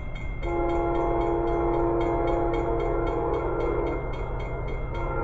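An approaching diesel locomotive's multi-chime air horn sounds one long blast of several notes at once, breaks off about four seconds in and starts a second blast near the end. Under it a grade-crossing bell dings rapidly, about three to four strokes a second, stopping near the end.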